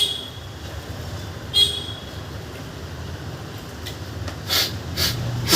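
Sharp, forceful blasts of breath out through the nose, clearing the last of the salt water after a jal neti rinse. There are two blasts about a second and a half apart, then from about four and a half seconds a quick run of short blasts, about two a second. A steady low traffic rumble runs underneath.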